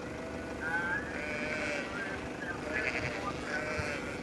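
A large flock of Dohne ewes bleating, with several calls at different pitches overlapping one another.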